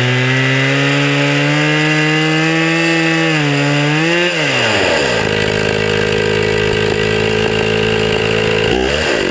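Chainsaw engine on a homemade sawmill running fast with a slightly wavering pitch. About four seconds in it drops to a lower steady speed, then winds down right at the end.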